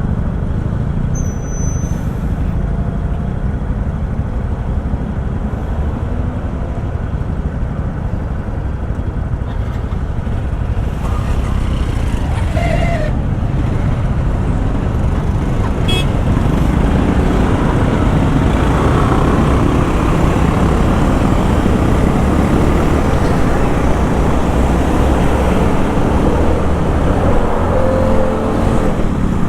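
City road traffic heard from a motorcycle: vehicle engines running and passing, with a short horn toot, the noise growing louder about halfway through.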